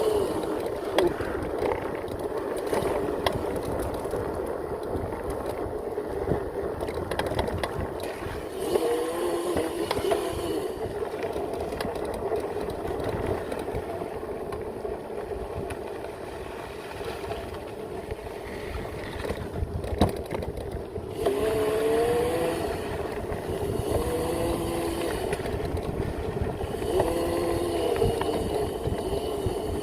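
Electric pit bike with a 5000 W motor on a 72 V battery, ridden off-road: the motor's whine rises and falls several times with the throttle, over a steady rushing noise, with a few sharp knocks from the rough ground.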